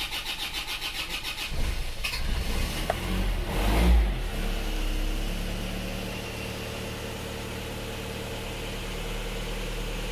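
Isuzu Panther diesel engine cranking on the starter at about five pulses a second, catching about a second and a half in, revving briefly to its loudest around four seconds, then settling into a steady idle. This is the first start after a rebuild with a reversed cylinder liner and new piston rings, done to cure heavy blow-by.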